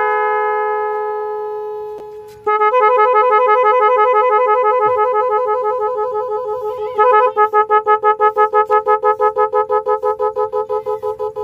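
12-volt digital multi-tone motorcycle horn ('magic horn') sounding through its two snail horns: a steady two-note tone dies away, then after a click a fast warbling two-note pattern starts. About seven seconds in it switches to a pulsing beep about three times a second, one of its 22 preset sounds.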